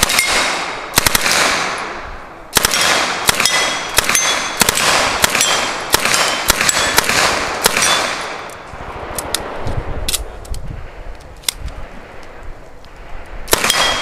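Open-bolt submachine gun fired in short bursts at steel plate targets, the shots echoing and the hit plates ringing with a metallic ping. Firing is dense through the first eight seconds, drops to scattered faint reports, and a last loud burst comes near the end.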